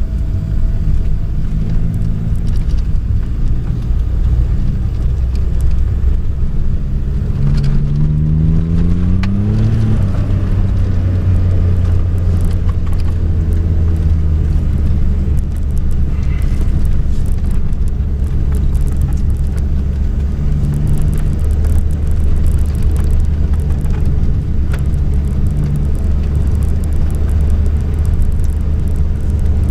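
Car engine heard from inside the cabin while driving on a snowy road: a steady low drone, its pitch rising for a couple of seconds about eight seconds in as it accelerates.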